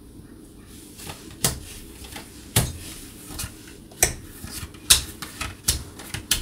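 Tarot cards being set down and moved about on a table: about half a dozen sharp, irregular taps and clicks over a few seconds.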